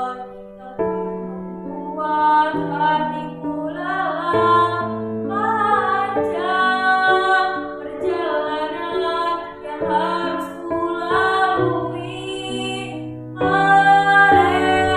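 A girl's solo singing voice, with sustained chords and bass notes as accompaniment.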